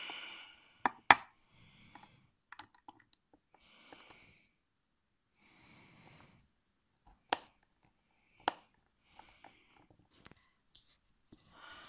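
Sharp metallic clicks and taps of a precision Torx screwdriver bit working a stripped screw in a laptop hard drive's metal casing. Two loud clicks come about a second in and two more near seven and eight seconds, with fainter ticks and short soft hisses in between.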